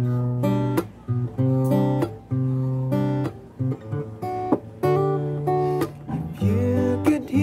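Acoustic guitar strumming chords in a steady rhythm, each stroke followed by the chord ringing on.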